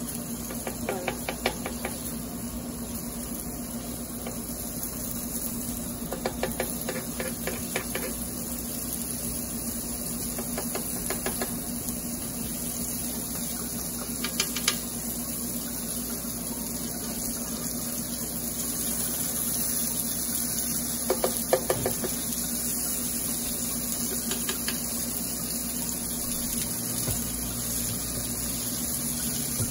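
Chicken pieces frying in coconut oil in a pan, a steady sizzle, with brief clinks and knocks every few seconds, loudest a little past the middle.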